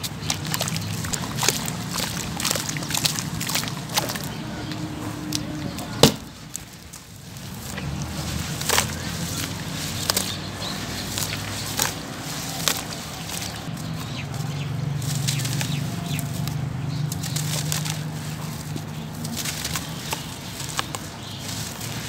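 Wet sand-cement lumps squeezed and crumbled by hand in a basin of water: gritty crunching and crackling with wet sloshing, and one sharp crack about six seconds in.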